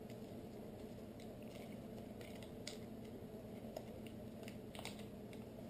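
Faint crinkling of a small plastic parts bag and scattered light clicks as a tiny replacement bearing is picked out and handled, over a low steady room hum.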